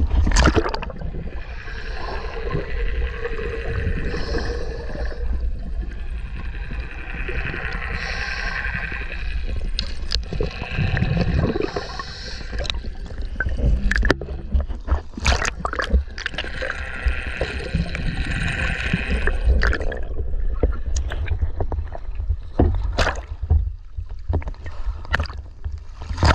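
Seawater sloshing and gurgling around a camera held at the surface on a pole as it dips under and comes back up, with a steady low rumble. Many sharp knocks and splashes come in the second half.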